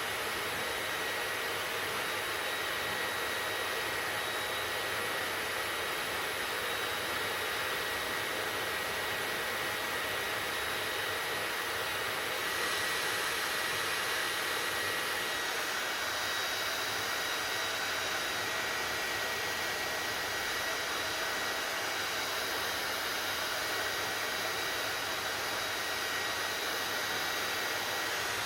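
Hair dryer running steadily: an even rushing blow with a thin, steady whine over it. The hiss shifts slightly about twelve seconds in, without a break.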